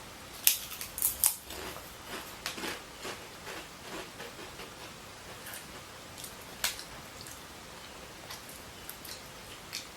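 Potato chips crunching as they are bitten and chewed: several sharp crunches in the first second or so, then fainter, scattered chewing crunches.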